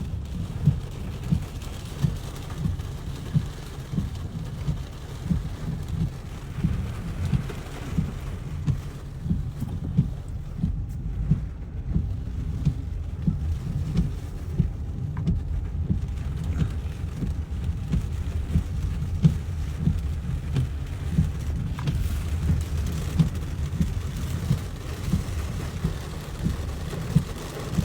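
Storm wind buffeting the microphone in a heavy, gusty rumble with frequent sharp peaks, as a tornado passes nearby.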